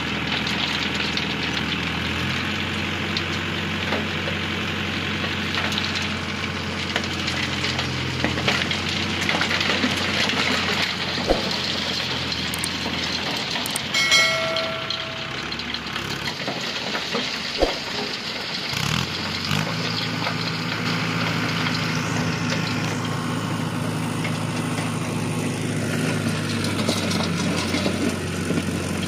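Mahindra Arjun 555 tractor's four-cylinder diesel engine running steadily with a loaded tipping trolley; about two-thirds of the way in the engine note steps up and holds higher as the hydraulics raise the trolley bed to tip its load. A short electronic chime sounds about halfway through.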